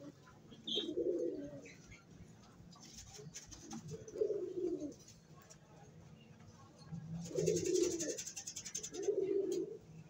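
Pigeons cooing: four low coos spaced a few seconds apart, with a brief rustling hiss about three quarters of the way through.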